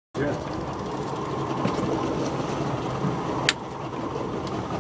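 Steady low hum of a Yamaha 150 outboard motor running at idle, under a bed of wind and water noise, with one sharp click about three and a half seconds in.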